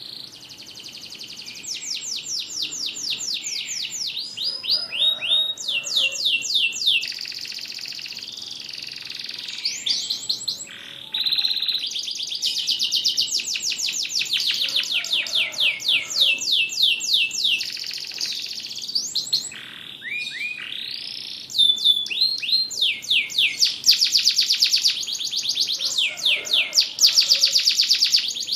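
Domestic canary singing a long continuous song of fast trills and rolls, each made of rapidly repeated notes sweeping downward, with brief changes of tour throughout.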